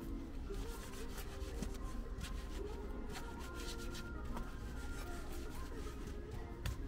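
Irregular rubbing and scrubbing strokes from hand-washing a car, with faint background music under them.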